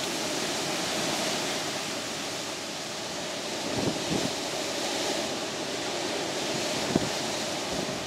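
Strong storm wind rushing through trees in a steady roar, with gusts buffeting the microphone about four and seven seconds in.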